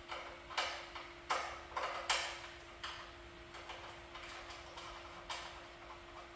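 Oil dripping from the Bronco's front oil-pan sump into a drain funnel: irregular sharp ticks that come often at first and thin out as the sump empties.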